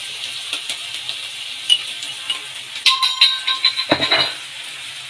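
Masala frying in ghee on a hot iron tawa: a steady sizzle with many small crackles. Around three seconds in comes a brief metallic ringing clink lasting about a second, with a knock near its end.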